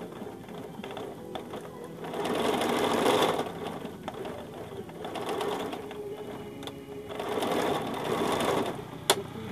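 Elgin domestic sewing machine running, getting louder twice for about a second and a half, about two seconds in and again near the end, with a sharp click shortly before the end.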